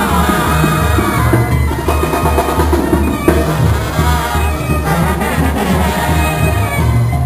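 Live banda music with a steady beat: trumpets and trombones playing over a tuba bass line and drums, with no singing.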